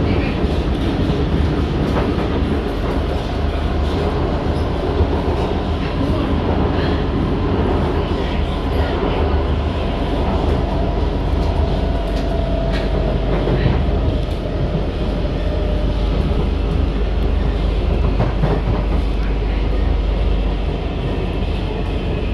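Cabin noise of an SMRT C151 metro train in motion: a steady rumble of wheels on the rails, with a faint motor whine from its permanent-magnet synchronous traction motors about halfway through and a few scattered clicks.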